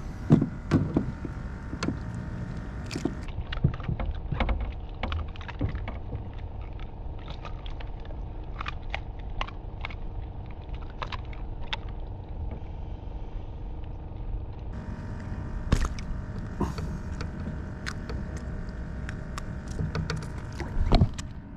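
Scattered sharp clicks and knocks of fishing gear being handled aboard a kayak, over a steady low rumble with a faint hum. The loudest knocks come about a second in, about two-thirds of the way through and near the end.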